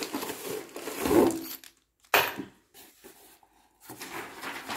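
Clear plastic bags of furniture screws and wooden dowels being handled on a wooden tabletop: rustling and rubbing, with a sharp knock a little after two seconds in.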